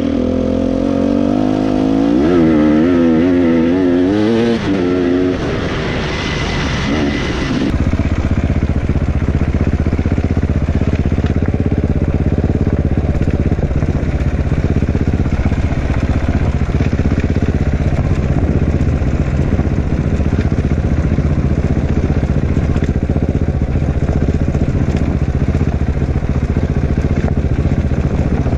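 Dirt bike engine revving up and down for the first several seconds, then, after a cut, a dirt bike engine running at a steadier pace for the rest.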